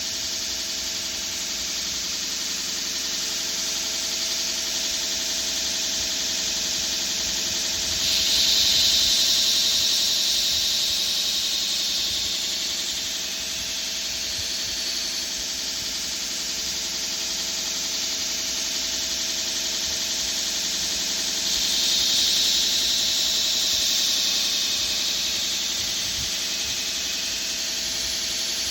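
Grinder running steadily while a pocket-knife blade is ground, with a louder, hissier stretch twice, about 8 seconds in and about 21 seconds in.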